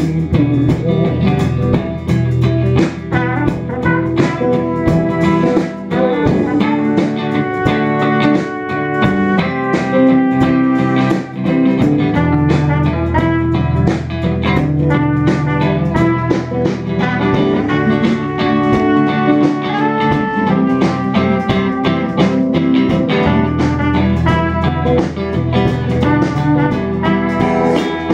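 Live band playing an instrumental passage of a rock song: electric guitars with a drum kit.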